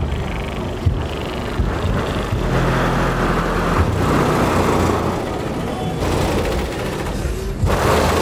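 Cars running with loud music playing over them, a steady deep low hum with a few heavy bass thumps, and a rushing noise that swells for a few seconds in the middle.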